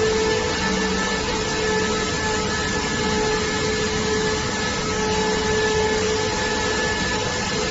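Corrugated cardboard production line (corrugator) running steadily: a constant loud machine noise with an even hiss and several steady whining tones.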